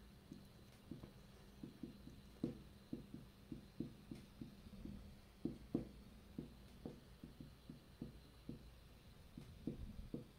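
Dry-erase marker writing on a whiteboard: a string of faint, irregular soft taps from the pen strokes, about two a second, over a low steady hum.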